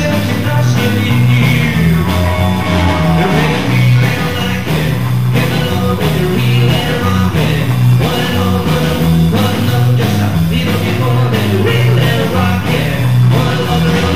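Live rock and roll band playing: electric bass holding a steady, repeating low line under a hollow-body electric guitar and drums, with a man singing over it.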